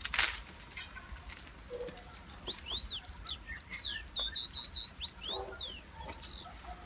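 A small bird chirping: a quick run of short, high, arching chirps through the middle of the stretch, some in fast clusters. A sharp click sounds just at the start, and faint taps and ticks come in between.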